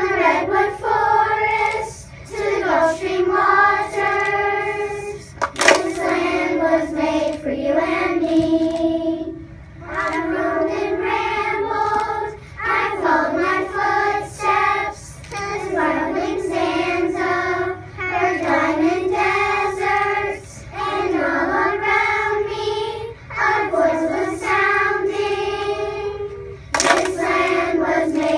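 A children's choir of third graders singing together, in sung phrases of about two to three seconds with short breaths between them.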